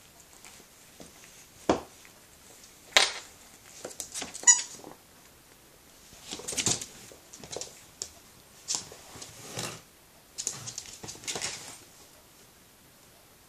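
Border terrier puppy playing: two sharp knocks, a short squeak, then several bursts of rustling and scraping as it noses at a cardboard box.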